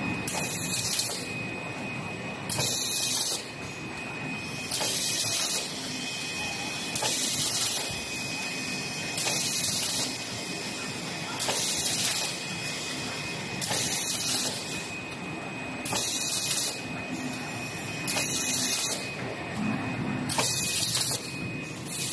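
Portable-pack wet wipes machine running: a short, high hiss repeats about every two seconds with each machine cycle, over a steady mechanical hum and a faint high whine.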